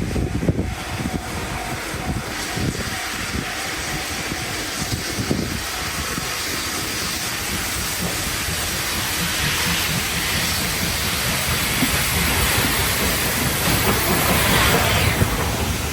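Freight train passing over a level crossing: a steady rumble and rattle of wheels on the rails that grows louder, with a hiss peaking near the end.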